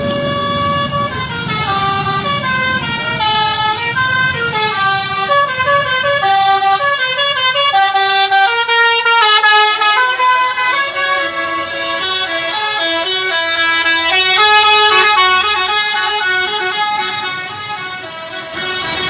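A tour bus's basuri telolet horn, a multi-tone air horn, playing a tune: several horn notes sound together and step from note to note for the whole stretch. Engine rumble sounds underneath for the first couple of seconds.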